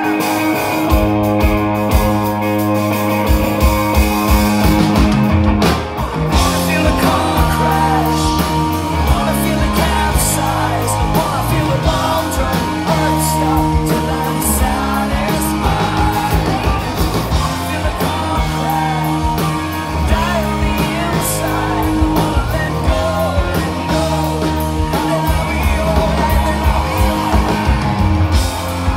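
Live rock band playing loudly through a PA: electric guitars, bass guitar and a drum kit keeping a steady beat, heard from the crowd.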